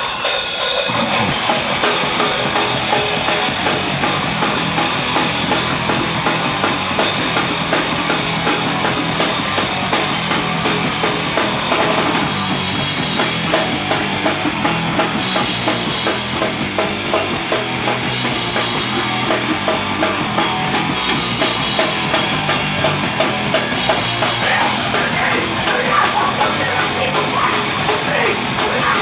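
Live rock band playing loud, full-band punk/metal rock, with drum kit, bass drum and snare driving it and electric guitar over them.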